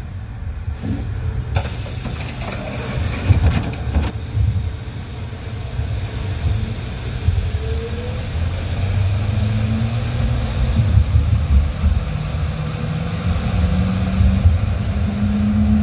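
Tram running with a steady low rumble, a loud hiss for about two seconds near the start, then an electric motor whine rising steadily in pitch as the tram gathers speed.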